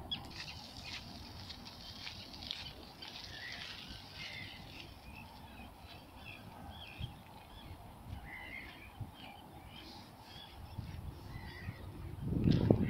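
Small birds chirping and singing in the trees over a low rumble, then a louder rush of rumbling noise near the end.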